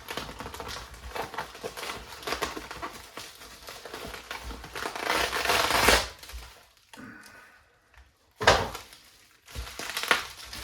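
Knife packaging being unwrapped by hand: crinkling and rustling with many small clicks, growing louder for a second or so about five seconds in, then a sharp knock a few seconds later.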